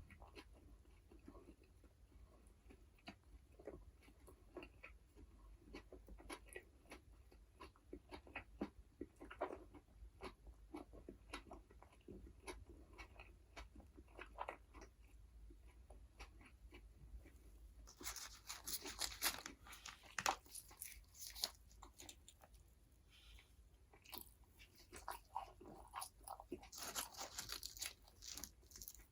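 Close-miked eating of McDonald's burgers and fries: soft, steady chewing clicks, then two spells of loud crunchy bites and chewing in the last third.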